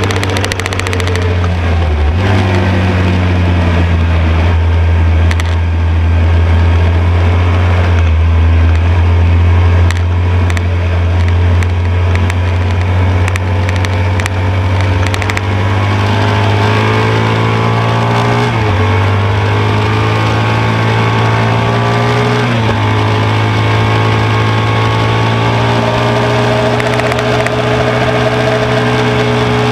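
A 1972 BMW R75/5's air-cooled flat-twin engine running hard at racing speed, heard from on board with wind rush. It eases off for a corner, then pulls hard, and its pitch drops sharply twice in the second half at the gear changes.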